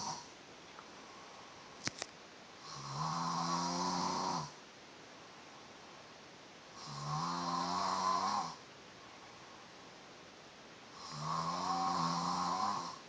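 A man snoring in his sleep: three long snores about four seconds apart, each lasting about two seconds. A single sharp click sounds about two seconds in.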